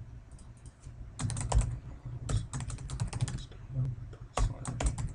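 Typing on a computer keyboard: three quick runs of keystrokes, with short pauses between them, as a folder path is typed in.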